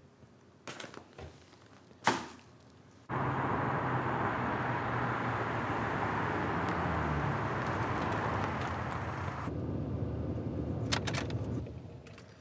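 A few faint rustles and a sharp knock, then a car starts running in a parking garage about three seconds in: a steady, loud engine and road noise with a low hum that eases about two-thirds of the way through and fades near the end, with a few clicks just before it fades.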